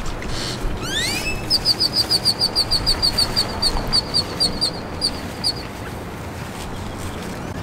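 A bird calls: a few quick rising whistles, then a fast run of high chirps, about five a second, that slows and stops a little past halfway.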